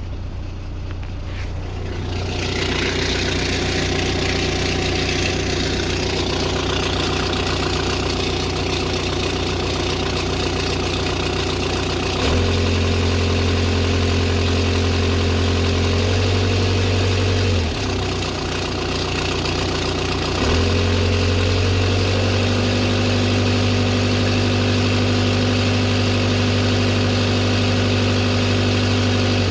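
Audi A6 C6 2.0 TDI (BLM) four-cylinder diesel engine running steadily, with a strange noise its owner cannot place. Partway through a louder low drone comes in over the engine sound, drops out briefly, then returns.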